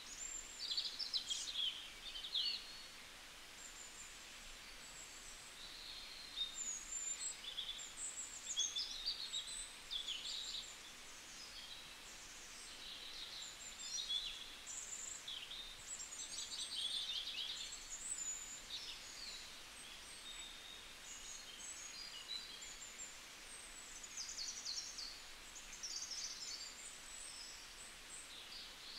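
Small birds chirping and twittering in quick, high-pitched phrases, one after another, over a faint steady hiss.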